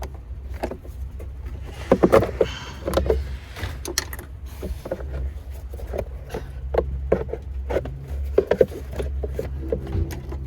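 Mercedes-AMG GT43 engine idling with a low steady hum, overlaid by irregular clicks and knocks, a few of them louder about two to three seconds in and again near eight seconds.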